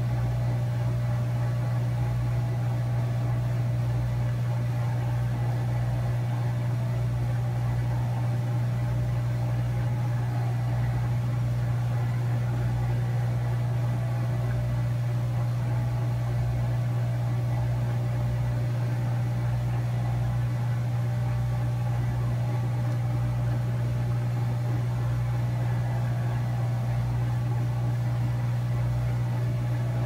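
Hot air rework gun blowing steadily onto a laptop logic board's display connector to melt its solder for removal: a constant hum with airflow hiss, unchanging throughout.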